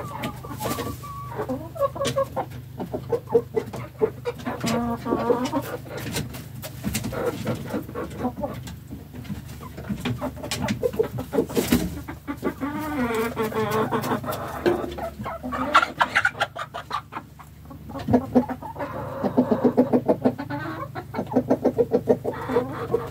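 Domestic chickens clucking in a coop: a run of short, repeated calls that start and stop throughout, over many sharp ticks and taps and a steady low hum.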